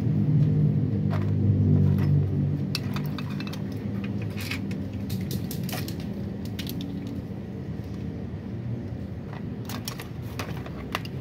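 Metal hand tools and engine parts clinking and tapping now and then, over a steady low hum that is louder for the first two or three seconds and then eases.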